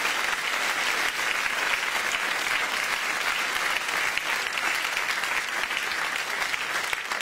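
Studio audience applauding steadily, easing off a little near the end.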